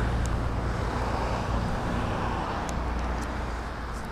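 Honda Grom's small single-cylinder engine idling through its new aftermarket exhaust, a steady low note that grows a little quieter over the few seconds, with a few faint clicks.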